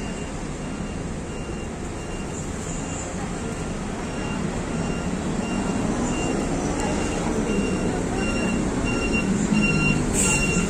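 City bus engine running as the bus pulls in, growing louder as it comes close, with an electronic warning beep that starts about halfway through and repeats at even spacing. A short burst of hiss comes near the end.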